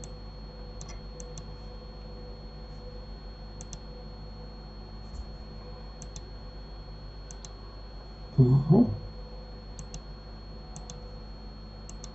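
Computer mouse clicks, scattered about ten times and often in quick pairs, over a steady electrical hum. A short, loud vocal sound cuts in once about eight and a half seconds in.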